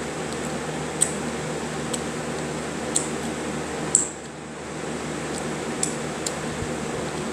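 Fingers being licked and sucked clean after eating: short wet smacks, about one a second, the loudest about four seconds in, over a steady background hiss.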